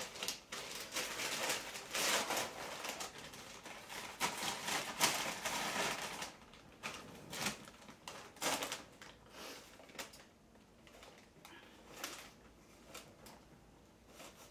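Paper rustling and crinkling as a gift is unwrapped from a brown paper bag and paper wrapping. The rustle comes in dense bursts for about six seconds, then as a few scattered crinkles.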